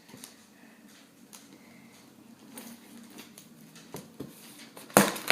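Quiet handling of scissors and a cardboard package, with faint rustling, then a few sharp clicks or knocks near the end.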